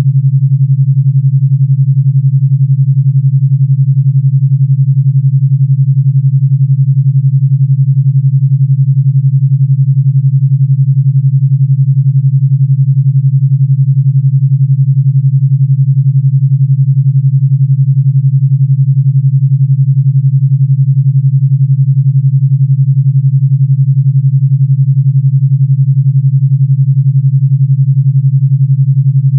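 Steady, loud, low pure sine tone at 141 Hz with a fast, even pulsing, an 11 Hz alpha-wave beat.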